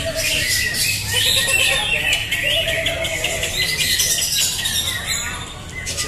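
Many caged green leafbirds (cucak hijau) singing at once: a dense, unbroken mix of chirps, warbles and whistles.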